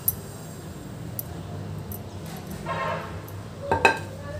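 Roasted semolina poured into hot ghee in a pan: a soft rush of pouring grains about three seconds in, with metal clinks of a utensil against the pan, a sharp one at the start and a couple near the end, over a low steady hum.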